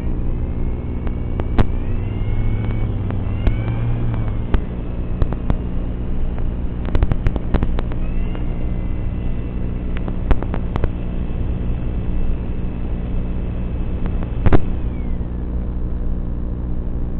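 Battery-powered RC boat's electric motor running, with a steady low hum, a thin higher whine that glides up and down, and scattered sharp clicks.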